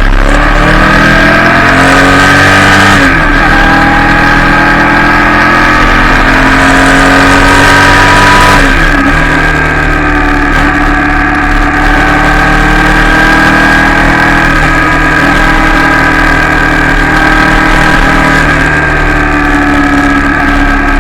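Royal Enfield Shotgun 650's 648 cc parallel-twin engine pulling under acceleration: its pitch climbs, drops at an upshift about 3 seconds in, climbs again and drops at a second shift about 8 seconds in, then holds a steady cruise with small rises and dips.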